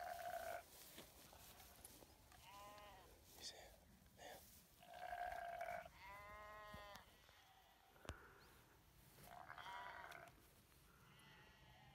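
Faint sheep bleating: several separate calls a few seconds apart, the longest about a second.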